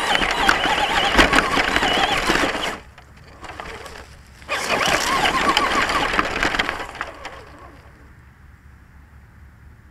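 Traxxas Stampede RC truck's electric motor and drivetrain whining, the pitch wavering with throttle, while the chassis rattles and knocks over rough ground. It drives in two spurts, easing back about three seconds in, picking up again near four and a half seconds, and dropping away after about seven seconds.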